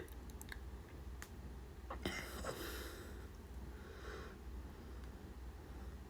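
Quiet room tone with a steady low hum, a few faint clicks, and a soft brief noise about two seconds in.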